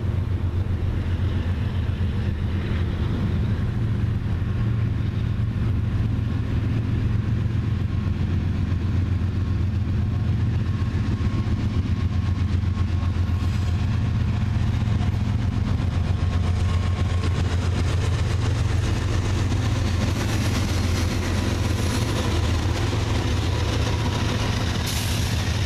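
Diesel locomotives of a CSX freight train running steadily as they approach and pass, a constant low engine rumble with a faint hum above it, and rail noise rising near the end as the locomotives go by.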